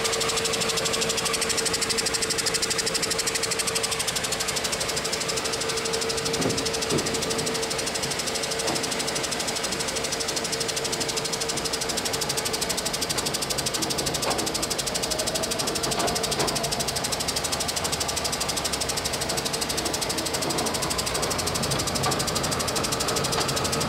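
A 1966 DOALL 2613-2 vertical band saw running with no cut, in the low range of its transmission. Its motor, speed drive and blade make a steady mechanical whir and rattle, with a steady tone over it for the first few seconds.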